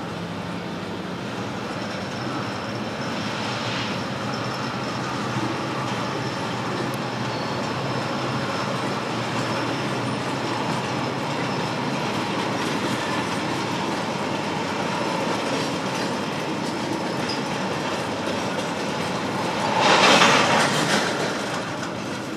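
CPR freight train's tank cars rolling slowly past, wheels clicking over the rail joints with a faint high wheel squeal. About twenty seconds in, a louder rush of noise swells and fades over about two seconds.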